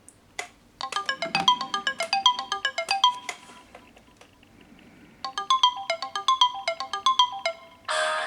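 Samsung Galaxy phone ringtone playing a melody of quick, short notes in two phrases with a pause between. Near the end a fuller, denser sound cuts in.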